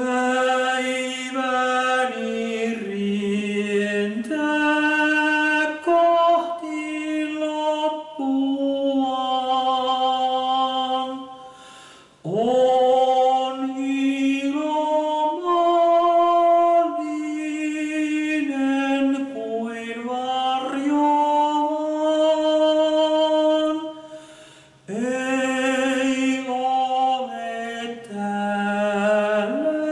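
A man singing a Finnish hymn alone and unaccompanied, in slow held notes, breaking for breath about twelve seconds in and again about twenty-five seconds in.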